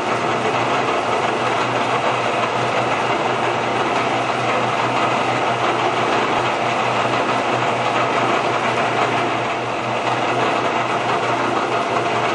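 Milling machine spindle running steadily as a countersink centering bit spot-drills the start of a hole in an AK front trunnion.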